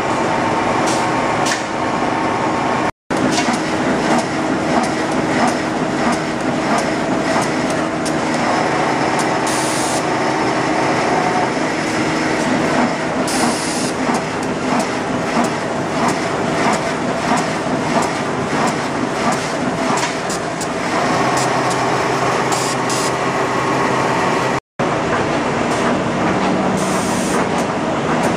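Facial tissue production line machinery running steadily: a dense, fast mechanical clatter over a steady hum, with a few short hisses of air. The sound cuts out for an instant twice.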